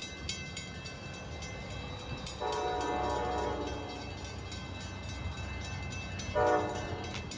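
Distant train horn: one blast of about a second and a half, then a short blast about three seconds later, over a steady low rumble.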